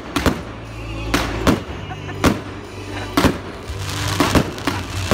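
Aerial firework shells bursting overhead in quick succession: about ten sharp bangs, roughly two a second, with a spell of hissing crackle around four seconds in. Background music with steady low tones runs underneath.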